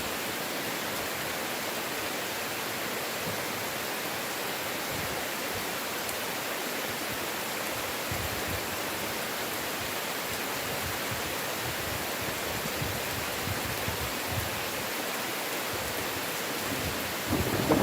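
Heavy rain falling in a steady, even hiss. A low rumble of thunder starts to build in the last half second.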